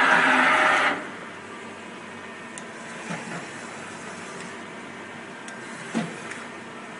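Yang Eagle SMV 600 CNC vertical machining center running: a loud rushing noise for about the first second that cuts off sharply, then a steady mechanical hum with a short low thump about six seconds in.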